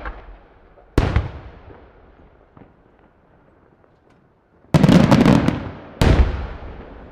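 Aerial firework shells bursting: a loud bang about a second in, a faint pop a little later, then a rapid cluster of bangs near the end and one more bang a second after, each trailing off in a rolling rumble.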